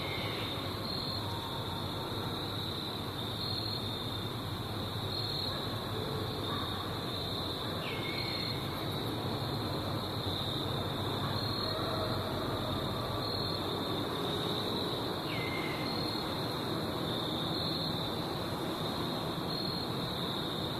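Night insects chirring steadily in a high, pulsing chorus. Three times, about eight seconds apart, a short call slides downward in pitch over it.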